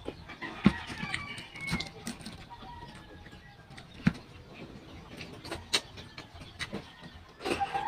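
Chickens clucking, with short calls about a second in and again near the end, over scattered sharp clicks and knocks, the loudest two about three seconds apart.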